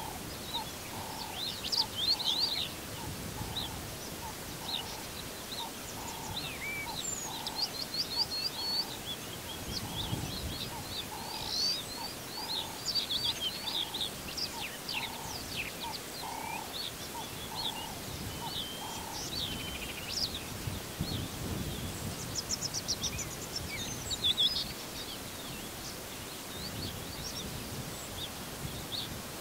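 Several birds chirping and trilling in the bush. A lower note repeats steadily, a little faster than once a second, and stops about two-thirds of the way through.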